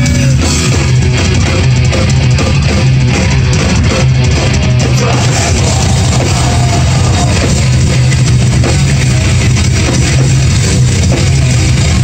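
Live rock band playing heavy, loud music: electric guitars, bass guitar and drums, steady throughout.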